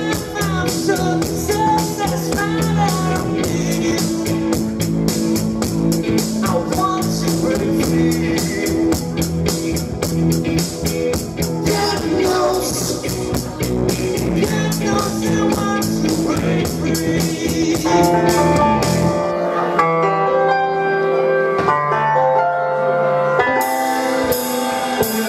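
Live three-piece rock band playing an eighties cover: drum kit with a steady fast hi-hat, bass, electric guitar and singing. About 19 seconds in, the drums and bass drop away, leaving sparse held keyboard-like notes.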